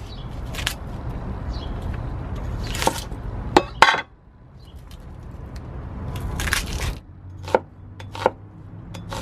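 Cleaver slicing a red onion on a wooden cutting board: about seven sharp, irregularly spaced knocks of the blade striking the board. A low steady rumble runs underneath and drops away about seven seconds in.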